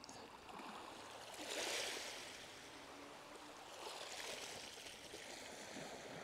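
Small waves washing onto a shingle beach: a faint hiss that swells twice, about a second and a half in and again about four seconds in.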